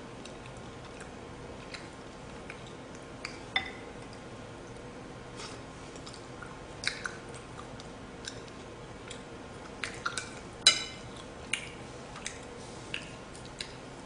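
Eating sounds: a spoon and chopsticks clinking against a bowl and plate now and then, with soft chewing between. A few clinks ring briefly, the loudest about ten and a half seconds in.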